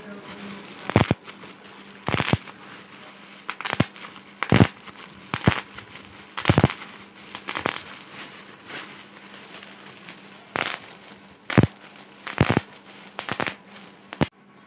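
Bubble wrap being popped by hand: sharp single pops, sometimes two in quick succession, at irregular intervals of about a second, with the plastic sheet crinkling between them.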